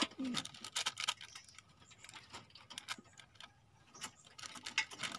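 Irregular small clicks and crinkles of a plastic medicine sachet being handled and torn open by hand.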